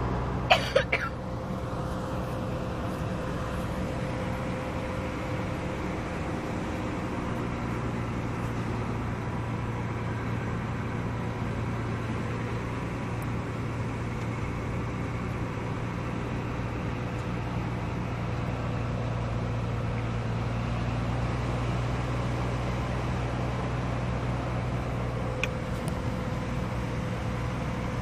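A motor running steadily at an unchanging speed, with a few sharp knocks about half a second to a second in.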